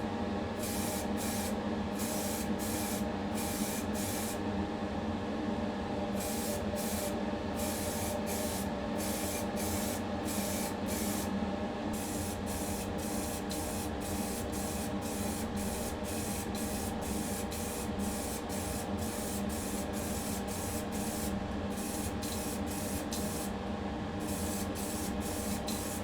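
Paint being sprayed onto diecast model parts in many short bursts of hiss, roughly two a second with brief pauses, over a steady hum.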